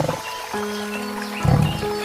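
The end of a big cat's deep roar, fading in the first moments, then a single short low grunt about one and a half seconds in, over steady background music.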